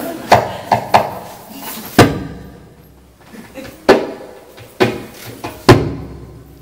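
Djembe played by hand in sparse, uneven strikes, about seven hits with pauses between, each ringing briefly; a few of them, about two seconds in and near the end, are deep bass tones.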